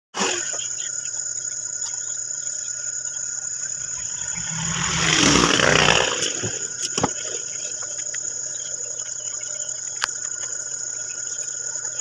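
Crickets trilling in one steady high-pitched tone. A louder rushing noise swells and fades about five to six seconds in, and there are a couple of sharp clicks.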